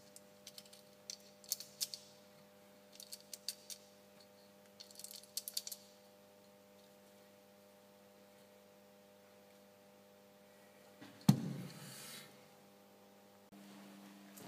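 Rimfire .22 LR cartridges being thumbed one by one into a GSG 1911 .22 magazine: clusters of small, sharp metallic clicks over the first six seconds. A single loud knock comes about eleven seconds in.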